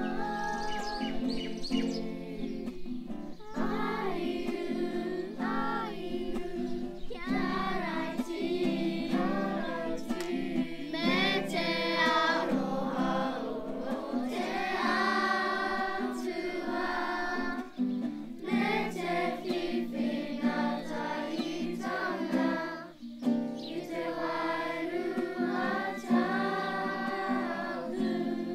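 A children's kapa haka group singing a Māori song together, accompanied by a strummed acoustic guitar.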